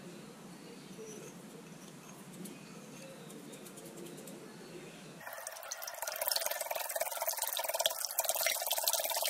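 Wire whisk beating a runny egg-and-milk mixture in a glass bowl: a fast, wet, clicking slosh that starts abruptly about five seconds in and gets louder. Before that there is only a faint low murmur.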